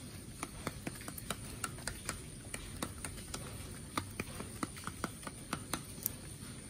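Chickens pecking feed from a plastic feeder pan and the ground: a stream of irregular sharp beak taps, a few a second.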